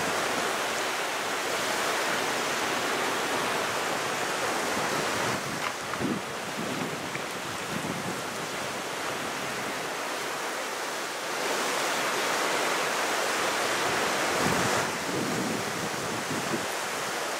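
Waves breaking on the shore with wind blowing across the microphone: a steady rushing hiss that dips a little about five seconds in and swells again about two-thirds of the way through.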